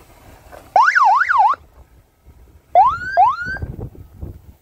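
Electronic siren tones blasted through roof-mounted PA horn loudspeakers. A fast up-and-down warble lasts under a second, then after a short pause come two quick rising whoops.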